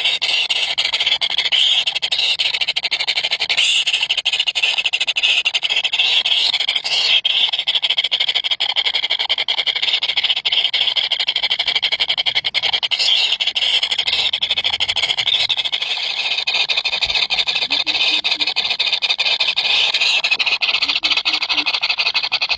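Three nestling birds making high-pitched begging calls in a dense, unbroken chorus, the sound of hungry chicks asking to be fed.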